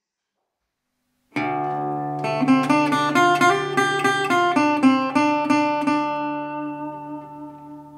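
Resonator guitar starting a blues intro: a low note rings out about a second in and keeps sounding underneath, then a run of quickly picked notes comes in over it and gradually dies away near the end.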